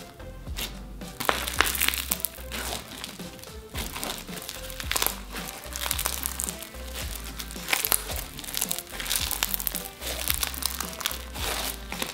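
Bingsu slime, packed with small plastic bingsu beads, crunching and crackling as hands squeeze, press and stretch it: many quick crackles over background music.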